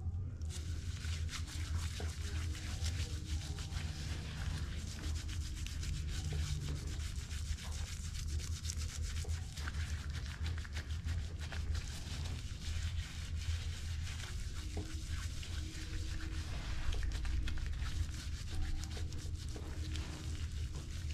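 Gloved hands rubbing a gritty exfoliating scrub over the bare skin of a foot: a continuous scratchy scrubbing over a steady low hum.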